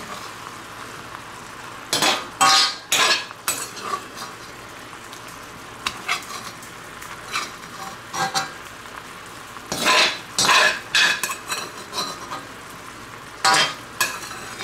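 Metal spoon scraping and clinking against a wok while scooping food out, over a steady sizzle of simmering gravy. The scrapes come in loud clusters about two seconds in, around ten seconds in, and once more near the end.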